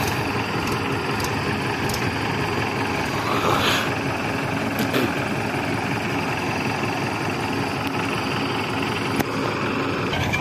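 Mahindra tractor's diesel engine idling steadily.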